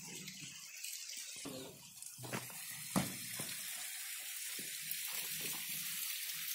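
Concrete hume pipes knocking as they are rolled down a steel ramp off a truck: a sharp knock a little after two seconds and a louder one about three seconds in, over a steady hiss.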